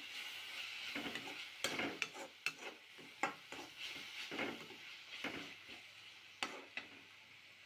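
Soya chunks in masala sizzling in a pan while a spoon stirs them, with about ten irregular clinks and scrapes of the spoon against the pan. The sizzle dies away over the last couple of seconds.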